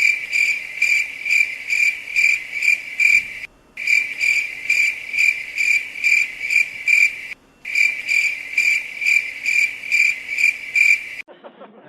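Cricket chirping sound effect: loud, evenly repeating chirps, about two a second, running as a loop with two brief sudden breaks and cutting off abruptly near the end.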